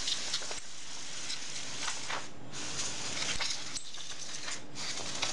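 Can of compressed air hissing in three long bursts, with two short breaks, as it is blown over a keyboard's rubber membrane to clear out dust and debris.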